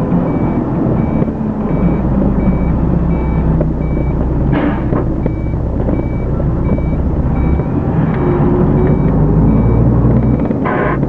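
Cab interior of a Renault Magnum truck on the move: steady diesel engine and road drone, with a short high tick or beep repeating about twice a second and a single knock about halfway through.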